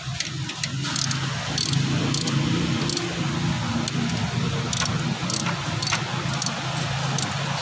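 Toyota Vios engine running steadily at idle, with scattered sharp metallic clicks over it at irregular intervals.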